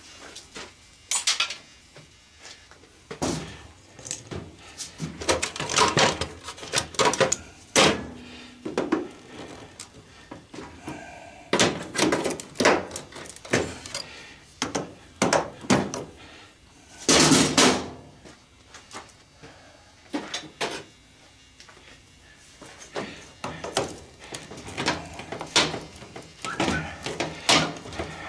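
Irregular knocks and clanks of tools on a washing machine's metal and plastic cabinet as a stubborn screw is worked loose, with one longer, louder clatter about 17 seconds in.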